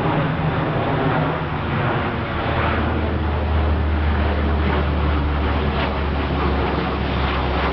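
Lockheed C-130 Hercules four-engine turboprop passing low directly overhead: a loud, steady propeller drone whose low hum drops in pitch about two and a half seconds in as the aircraft goes over.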